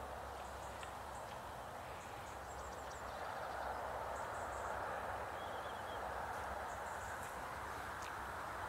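Steady outdoor background hiss with scattered faint, high-pitched chirps.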